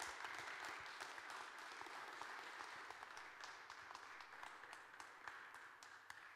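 Congregation applauding, many hands clapping together, the clapping dying away near the end.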